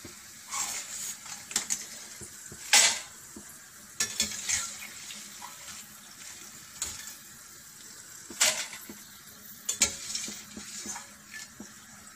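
Potato chips sizzling in hot oil in a steel kadai while a perforated metal skimmer stirs them and lifts them out, scraping and knocking against the pan. The crisp chips are ready to come out. The loudest metal knocks come about three seconds in and again about eight seconds in.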